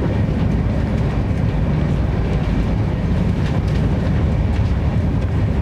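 Steady rumble and rattle of a Shatabdi Express passenger coach running on the rails, heard from inside the coach as the train picks up speed.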